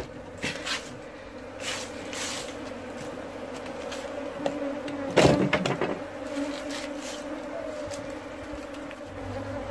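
A colony of honeybees buzzing in and around a wooden hive box, a steady hum. There is a sharp knock about five seconds in.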